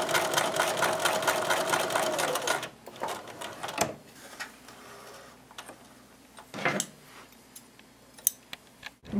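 Sewing machine stitching a row of long basting stitches: rapid, even needle strokes over a steady motor whine, stopping about two and a half seconds in. Scattered light clicks and rustles follow.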